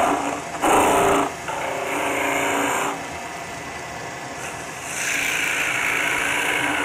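Spindle gouge cutting a maple spindle turning on a wood lathe: a scraping cut that comes and goes as the tool is worked, loudest for a moment about a second in.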